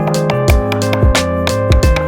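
Background music with a steady drum beat under sustained instrumental notes.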